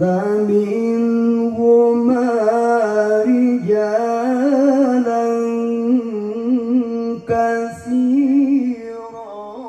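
A male qori reciting the Quran in the long, melodic tilawah style into a handheld microphone, amplified through a PA sound system. He holds long notes with wavering ornaments, with brief breaks twice.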